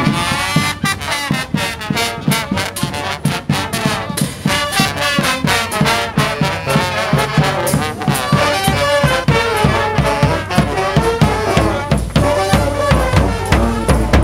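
Street marching band playing a tune on brass horns over a steady drumbeat.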